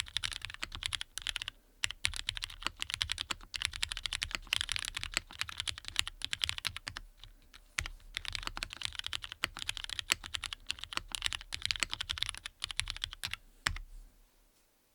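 Matrix Lab 8XV 3.0 mechanical keyboard with lubed Cherry MX Black linear switches on an aluminum plate, typed on at a fast, steady pace with a couple of short pauses; the typing stops about a second before the end.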